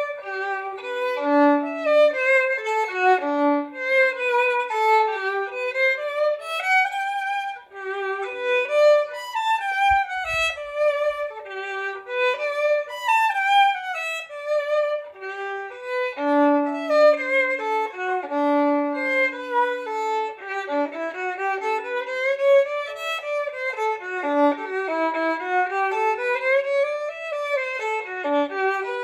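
Solo violin bowed unaccompanied, playing a flowing melody of quick runs that rise and fall, with a few longer held low notes.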